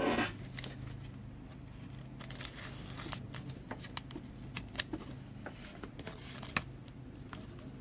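Soft, scattered clicks and rustles of trading cards being handled, over a steady low hum.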